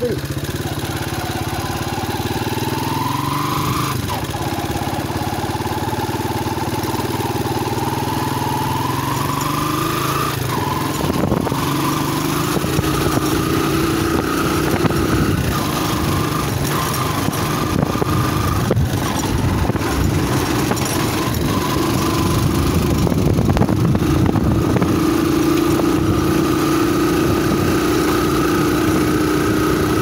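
Small motorcycle engine running under way. Its pitch climbs, drops sharply about four and ten seconds in as it shifts up, then holds fairly steady, with scattered knocks and rattles from the middle on.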